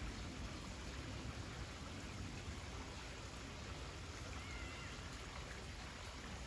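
Steady wash of running water with a low rumble underneath. A faint, brief high whistle comes about four and a half seconds in.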